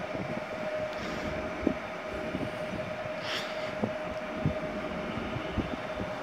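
Electric trains at a station: a steady whine over a low rumble, with scattered light clicks and a short hiss about three seconds in.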